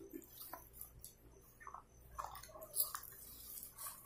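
Faint eating sounds: chewing on fries and a paperboard McDonald's fries carton being handled, heard as short, irregular soft rustles and clicks.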